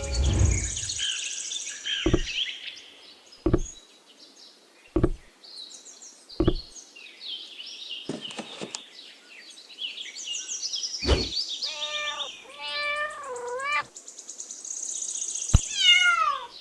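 A string of edited sound effects. Sharp knocks come about every second and a half, with high, sparkly chirps between them. Near the end there is a wavering, meow-like cry, then a cry that falls in pitch.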